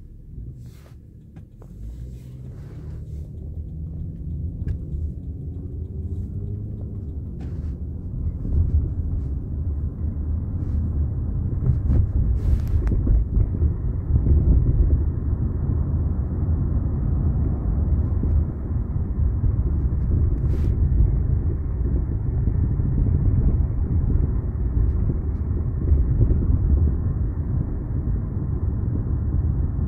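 A 1998 Toyota Camry being driven, heard from inside the car toward the back. The engine rises in pitch as the car picks up speed, and then steady road rumble carries on. A few short sharp knocks come through; the owner blames them on noisy new aftermarket struts.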